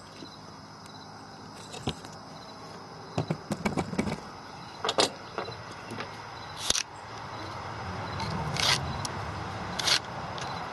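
Handling noises from a plastic lawnmower starter handle: scattered clicks, taps and scrapes as the remnant of the old pull cord is worked out of it by hand, with rustling that grows near the end.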